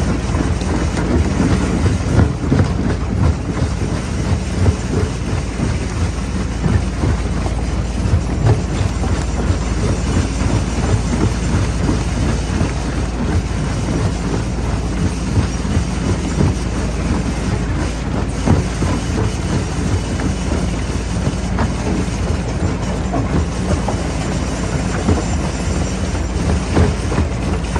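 Jaw crusher running under load: a steady low machine drone with a dense, continuous clatter of rock cracking and knocking in the jaws.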